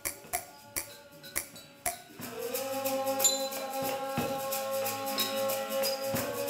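Karintol, a jaw harp made from a glass bottle after the Sundanese bamboo karinding, being struck: sharp twangy taps about twice a second over a faint tone. After about two seconds a louder, steady droning tone with quicker rhythmic taps takes over.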